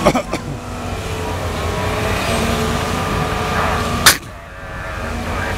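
Caterpillar 320 hydraulic excavator's diesel engine running steadily under load while it loads a dump truck, with a clatter right at the start and one sharp bang about four seconds in.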